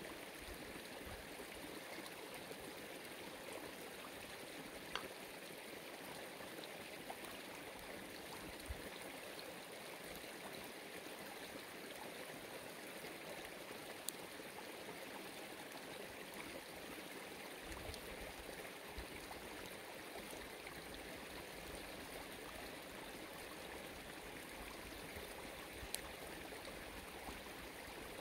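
Steady rush of running water, with a few faint sharp clicks scattered through it.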